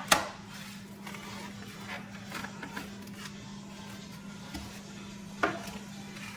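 A sharp click, then a machine starting a steady low hum, with small clicks and rattles over it; another knock about five and a half seconds in.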